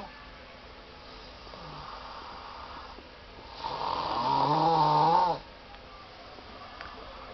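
A person snoring loudly: one long snore with a wavering pitch a little past halfway, with quieter breathing before and after it.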